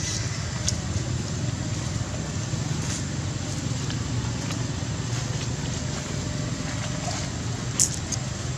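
Steady low outdoor rumble, with a few faint clicks and one sharp click near the end.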